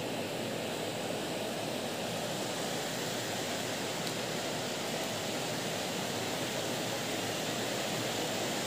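Steady rush of river water flowing over rocky rapids, an even hiss that does not change.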